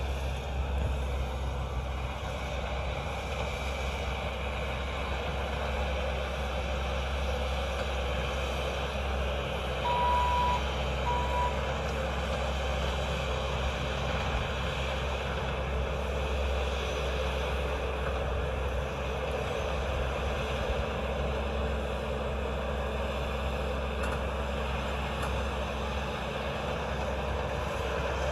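Bobcat T590 compact track loader's diesel engine running steadily at a distance as the machine works and turns. Its backup alarm beeps twice, about ten seconds in, as it reverses.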